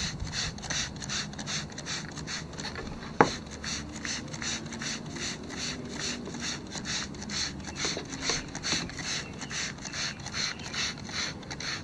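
Plastic trigger spray bottle being pumped quickly, giving short hissing squirts of wood cleaner onto deck boards, about three or four a second. One sharp click about three seconds in.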